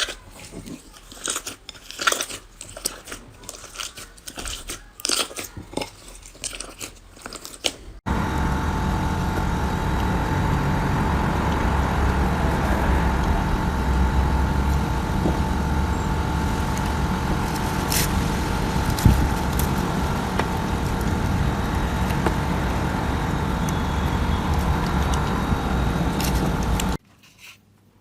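Slime being squeezed and pressed, giving dense crackling and popping clicks. About eight seconds in there is an abrupt cut to a steady, even noise with a faint hum, which stops suddenly near the end.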